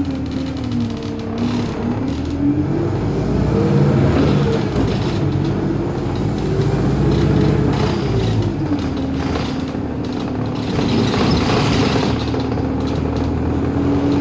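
Bus engine and drivetrain heard from inside the moving bus. The pitch climbs as it accelerates, drops back, climbs again and then settles to a steady hum near the end, under road and body noise.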